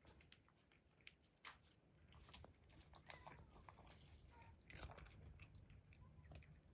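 Near silence: quiet room tone with faint, scattered small clicks and rustles.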